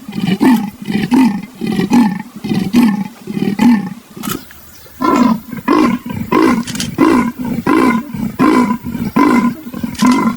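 Leopard giving its sawing call: a run of rhythmic grunts about two a second. After a pause of about a second near the middle, a second run of grunts follows.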